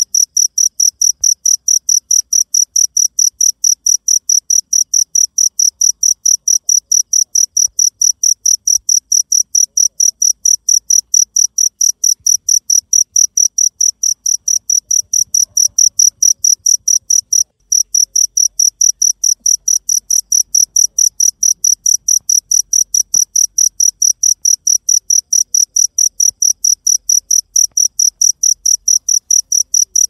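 Field cricket chirping loudly and steadily, about four or five high-pitched chirps a second, with a brief break a little past halfway.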